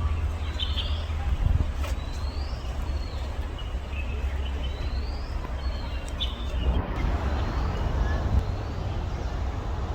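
A bird calling repeatedly, a short high sweeping note about once a second, over a steady low rumble.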